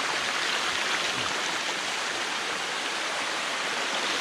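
Steady rushing of water from a cascading waterfall, an even hiss.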